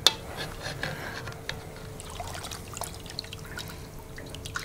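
Water sloshing and trickling off a vacuum-sealed bag of roast beef as it is lifted with metal tongs out of a sous vide water bath in a cast iron Dutch oven, with a sharp click right at the start and small splashes and clicks after. A faint steady hum from the running immersion circulator sits underneath.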